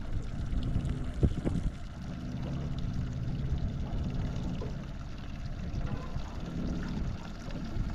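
Outboard motor running at trolling speed with a steady low hum, water splashing and gurgling along the stern. A brief knock comes about a second in.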